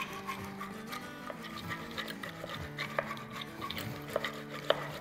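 Eggs being beaten in a ceramic bowl with a push-down spinning whisk: light irregular clicks and rubbing of the whisk against the bowl, over soft background music.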